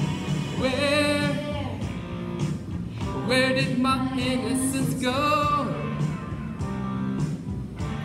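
Pop song playing: a sung vocal in three held phrases with vibrato over a guitar-led band and a steady beat.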